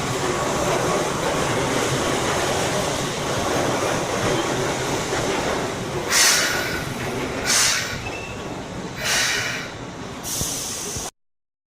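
A Keihan electric train moving through the station with a steady running rumble. Four short hisses come in the second half. The sound cuts off abruptly near the end.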